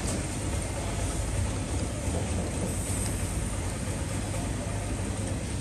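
Steady low rumble and hiss of background noise, with no distinct events.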